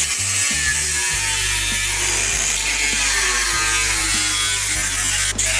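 Power tool running steadily on the sheet metal as the welds holding a Mustang fastback body to a Foxbody chassis are cut through, with brief breaks near the end.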